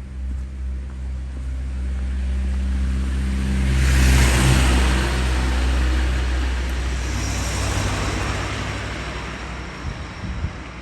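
A motor vehicle passing close by: a steady low engine hum with the rush of tyres building to a peak about four seconds in, then fading away.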